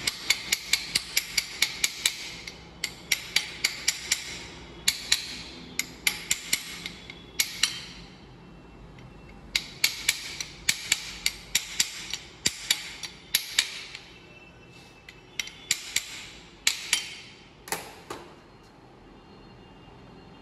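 Quick runs of sharp metal-on-metal tapping, with short pauses, thinning out near the end: a long steel rod knocked against a Bajaj Pulsar's front brake caliper to free the brake pad retaining clip.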